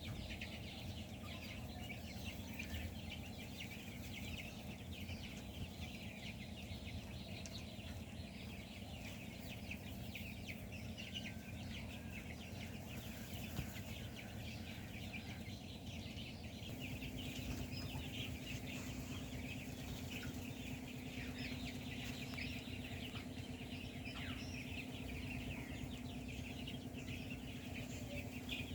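A flock of 20-day-old Kroiler chicks peeping continuously, many short high calls overlapping. Under it runs a steady low hum, and a second steady hum joins a little past halfway.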